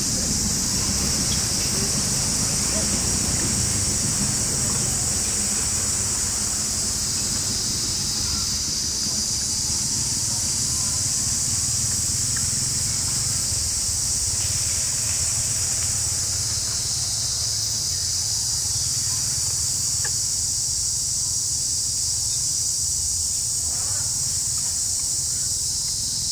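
Steady, high-pitched chorus of insects, with a low rumble underneath; the insect sound eases somewhat through the middle and swells again near the end.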